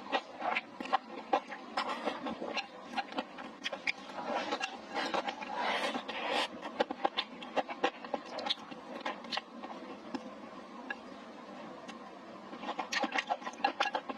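Close-miked eating sounds: irregular smacks, clicks and crunches of chewing spicy hot pot, with a denser, noisier stretch about six seconds in and another quick run of clicks near the end.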